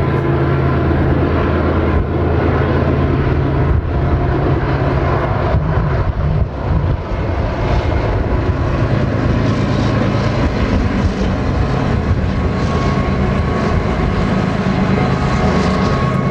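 Diesel engines of two BNSF freight locomotives running at speed, a steady deep drone.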